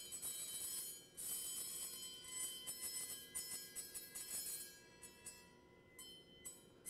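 Sand-covered brass Chladni plate set ringing by dry ice pressed against its edge: the rapid pulses of CO2 gas make it ring with a shrill mix of several high tones at once rather than one pure tone. The ringing comes in spurts, breaks off briefly about a second in and grows faint over the last two seconds.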